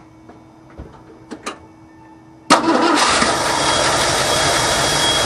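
A few faint clicks, then about two and a half seconds in the truck's Ford FE big-block V8 fires suddenly on a cold start, its Motorcraft two-barrel carburetor primed by pumping the throttle, and runs on loud and steady.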